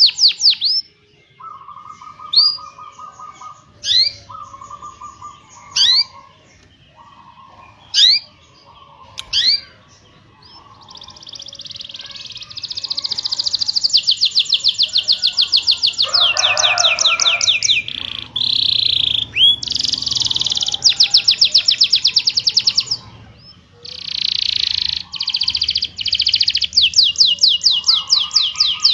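Domestic canary singing. In the first part, short rising 'cuit' chirps come about every two seconds between lower buzzy trills. From about a third of the way in, long fast rolling trills run on, pausing only briefly.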